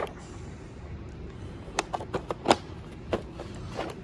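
Tools and plastic cases being handled in a metal tool box drawer: a handful of scattered clicks and light knocks over a low steady hum.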